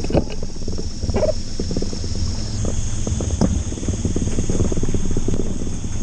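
A steady high-pitched insect drone whose pitch steps up about two and a half seconds in, over a constant low rumble with a fine crackle.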